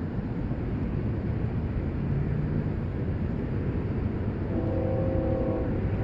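Distant freight locomotive air horn sounding one chord of several notes for about a second, starting some four and a half seconds in, over a steady low rumble.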